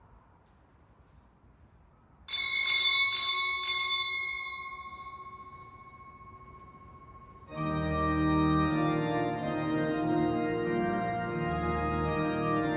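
A small church bell struck several times in quick succession, then ringing out and fading: the bell rung at the start of Mass. About halfway through, a church organ comes in with full, sustained chords and low pedal notes.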